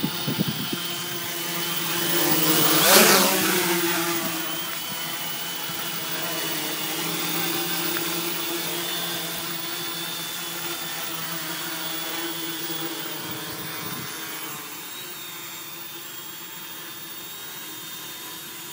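Homemade quadcopter's four Peak 2212 brushless motors and propellers hovering with a steady hum and whine. It is loudest about three seconds in, where it passes close, and fainter toward the end.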